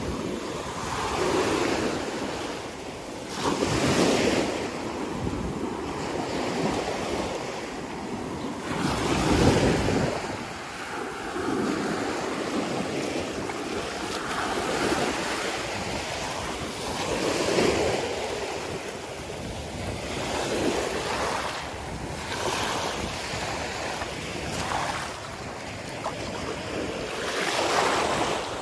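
Small sea waves breaking and washing up over the sand, the surf swelling and easing every few seconds, with wind buffeting the microphone.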